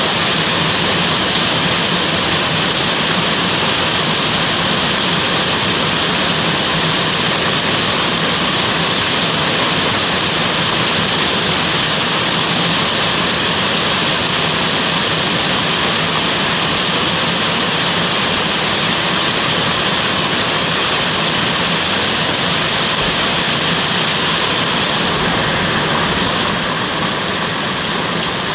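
Heavy rain falling steadily as an even hiss, a little softer near the end.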